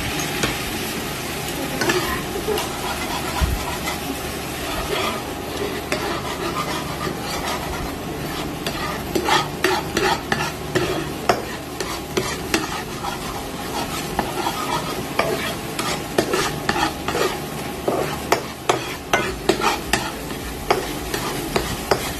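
A metal slotted spatula stirring and scraping a flour-thickened sardine sauce that sizzles in a frying pan. The spatula makes many sharp taps against the pan, coming thicker in the second half.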